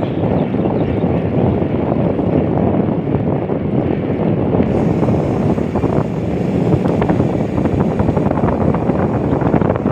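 Wind buffeting the microphone of a camera mounted on a moving bicycle: a loud, steady rushing rumble.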